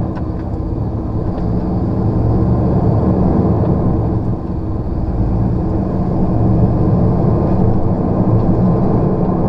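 Lorry's diesel engine running steadily while driving, heard inside the cab, with a constant drone and road noise.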